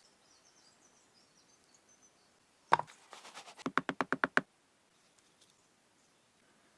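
A single sharp knock, then a quick run of about ten taps in under two seconds.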